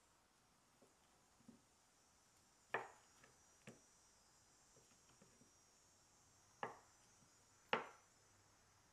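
Large kitchen knife cutting through a thin, crisp socca (chickpea flatbread) and knocking down on a wooden cutting board: four sharp knocks, the loudest near the end, with faint scrapes of the blade between them.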